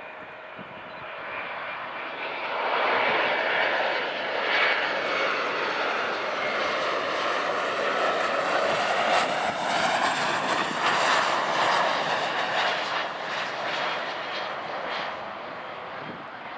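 Boeing 737-400's CFM56-3 turbofan engines at approach power as the airliner flies past low on final before landing. The jet noise swells about two to three seconds in, stays loud through the middle with a shifting whine, and eases off near the end.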